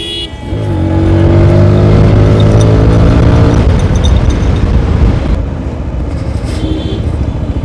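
TVS Apache RTR 160 4V's single-cylinder engine revving up under acceleration, its pitch climbing for about three seconds. It then drops back to a steadier, quieter running note.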